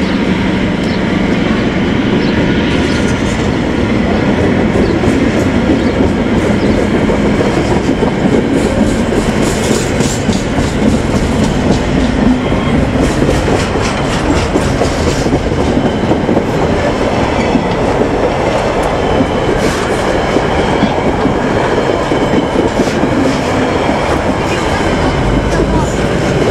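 Container freight train's flat wagons rolling past close by: a steady, loud rumble of steel wheels on rail with a running clatter of clicks as the wheels cross rail joints.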